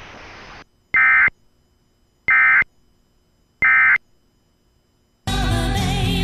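Three short bursts of EAS SAME digital data tones from the station's Sage ENDEC 1822, about a second and a half apart: the End of Message signal that closes the emergency alert. Station music starts near the end.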